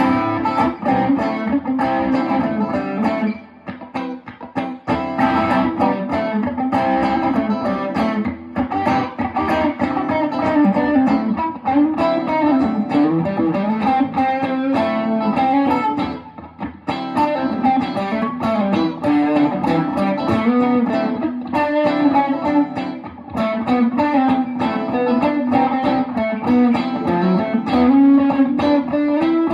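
Electric guitar being played: a continuous run of plucked notes and chords, with brief pauses about four seconds in and again after about sixteen seconds.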